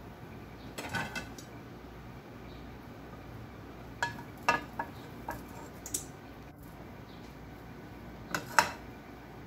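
Kitchenware knocks and clinks: a nonstick frying pan and a silicone spatula handled on a glass-top stove, with a white plate nearby. Scattered short knocks come in small groups, some with a brief ring, and the loudest is near the end.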